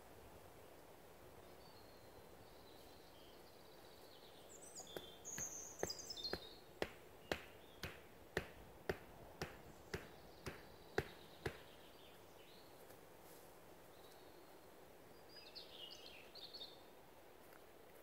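A tent peg being knocked into the ground: about a dozen sharp strikes, roughly two a second, starting about six seconds in and stopping just before twelve. Small birds chirp briefly before the strikes and again near the end.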